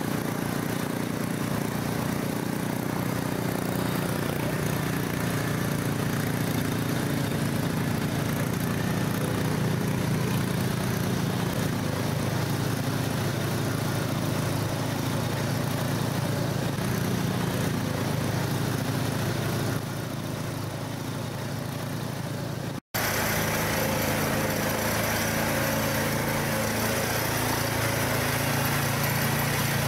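Small all-terrain vehicle engine running steadily under load. The sound drops out for an instant about 23 seconds in and comes back with a different engine note.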